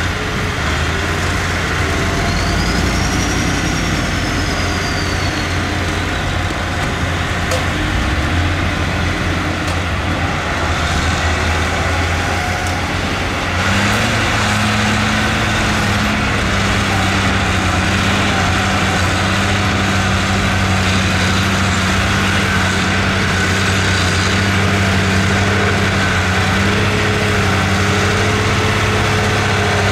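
Heavy diesel earthmoving machinery running steadily at a land-filling site. About halfway through, the engine note shifts and a steadier, higher hum comes in.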